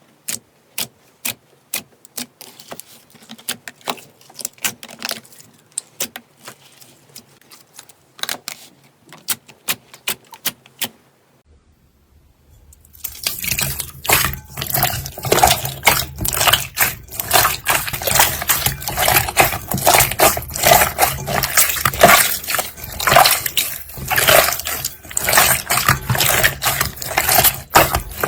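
Slime being squeezed and pressed by hand, making sticky clicks and wet pops. For the first half the pops come sparsely, a few a second; about halfway through they give way to a louder, dense run of crackling, squelching clicks.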